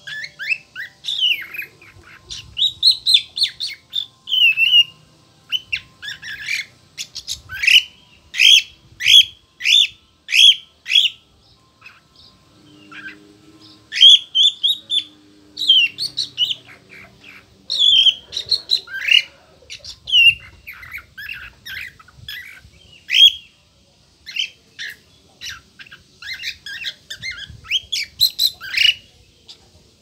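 Lutino cockatiel whistling and singing: a long run of short whistled notes that slide up and down in pitch, breaking off briefly twice.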